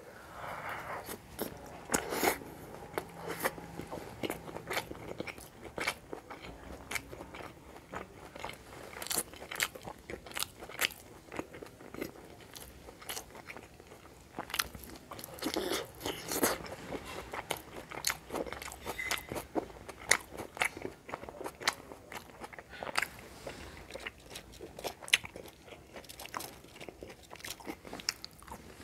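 A person eating close to the microphone: crisp crunches as food is bitten and chewed, with wet mouth sounds, many sharp crackles in an uneven run, loudest about two seconds in and again about halfway through.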